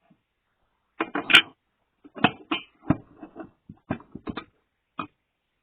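A quick series of short knocks and clatters, about ten in four seconds, as kitchen things are handled and set down.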